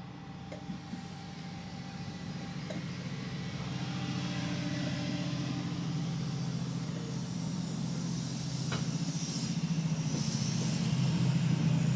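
Class 68 diesel-electric locomotive's engine running under power and growing steadily louder as the train pulls away, with a single sharp click about three-quarters of the way through.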